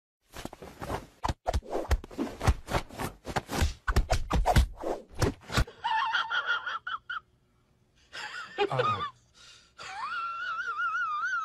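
A hand rapidly patting a cat's belly: quick, irregular pats at several a second for about five seconds. Then come a few high, wavering squeaky cries, the last one wobbling up and down in pitch near the end.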